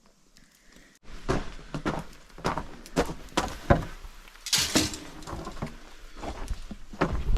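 An irregular series of sharp knocks and cracks starting about a second in, with a short rustling burst midway.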